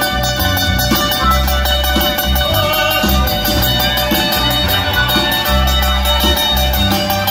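Live amplified acoustic band playing an instrumental passage: two acoustic guitars, one of them nylon-string, strumming and picking while a harmonica plays a held, bending melody over them.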